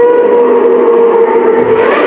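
Monster roar sound effect: a loud, sustained pitched cry over a rough, raspy hiss, holding steady without a break.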